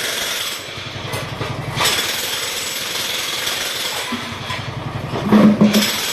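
Jackhammer hammering hard rock at the bottom of a hand-dug well. It stops twice for a second or so, and an engine is heard idling in the gaps. Just before the hammering starts again there is a brief loud sound.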